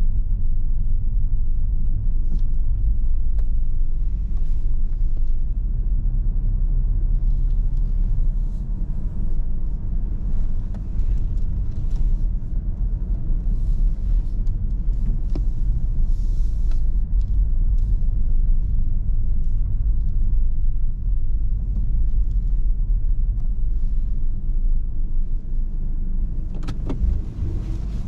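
A BMW car running at low speed, heard from inside the cabin as a steady low rumble of engine and tyres. A few faint clicks come near the end.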